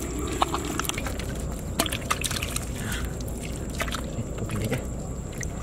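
Hands scooping and squelching wet mud in shallow muddy water, with irregular splashes, slaps and drips. A thin steady high tone runs underneath.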